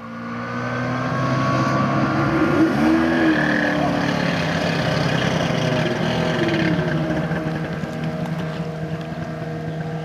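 Kawasaki stand-up Jet Ski's two-stroke engine running as the watercraft pulls away, its pitch rising and falling twice as the throttle is worked. It is running a little rough.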